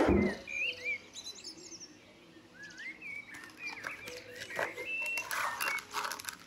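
Small birds chirping in short, rising-and-falling whistled phrases. A dull thump comes right at the start, and a patter of light clicks and rustling comes in the last couple of seconds.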